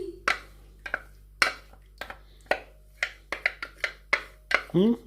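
A stirring utensil clinking against a cooking pot as a thick coconut milk and pumpkin mixture is stirred, in sharp irregular knocks about two or three a second. A brief voice comes in near the end.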